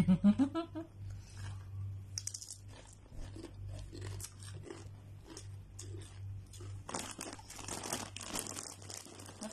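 Crunching of Doritos tortilla chips being eaten, a string of short crackles, then the foil chip bag crinkling loudly for about two seconds from around seven seconds in. A steady low hum runs underneath.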